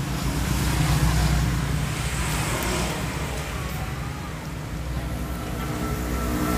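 An engine running steadily with a low hum, getting louder near the end.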